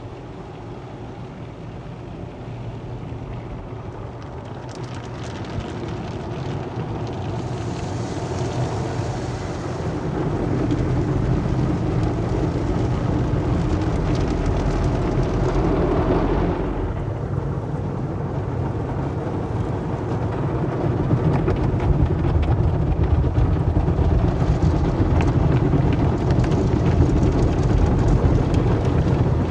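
Automatic car wash heard from inside the car's cabin: water and soap foam sprayed over the windshield and body, with a muffled low rumble from the wash equipment. It grows steadily louder, with a brief swell about halfway through.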